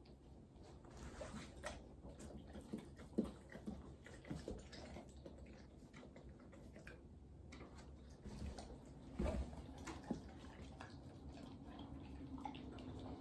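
Quiet, scattered small clicks and knocks, with a few sharper knocks about three and nine seconds in. Footsteps in rubber boots on the floor come in near the end.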